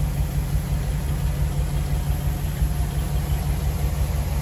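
1957 Ford Thunderbird's 312 Y-block V8, on a single carburettor, idling steadily, heard from the rear of the car near the bumper exhaust outlets.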